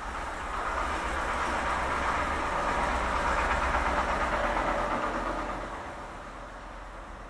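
A passing vehicle: a swell of noise that builds over the first second, holds for a few seconds and fades away, over a low steady hum.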